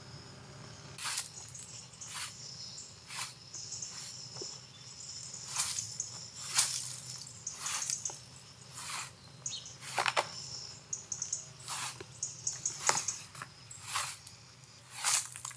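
Push broom swept across a flat bitumen roof in short scratchy strokes, roughly one a second at an uneven pace, starting about a second in. Crickets chirr steadily behind.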